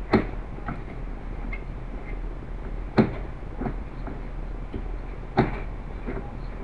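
A few sharp clunks and knocks of things being handled on a workbench: three louder ones, about two and a half seconds apart, and lighter taps between, over a steady low hum. The glow engine is not running.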